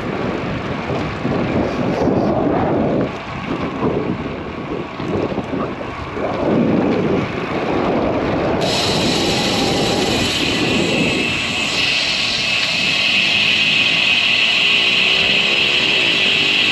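Wind and road noise while riding a road bicycle near traffic, rising and falling unevenly; about halfway through a loud, steady high hiss starts suddenly and holds.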